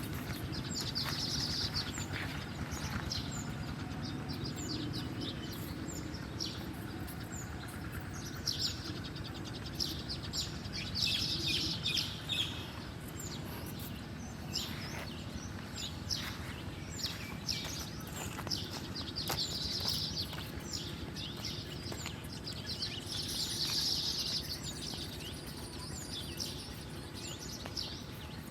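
Small songbird chirping in quick high-pitched clusters that come back every few seconds, over a steady low background rumble.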